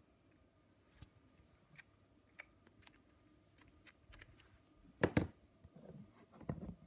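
Handling noise of a small plastic slime tub: scattered faint clicks, then two sharp knocks in quick succession about five seconds in as the tub is set down on the table, and a duller thump near the end.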